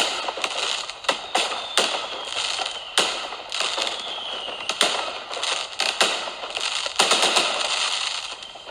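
Fireworks: a string of sharp bangs from bursting shells over continuous crackling, with whistles that fall in pitch.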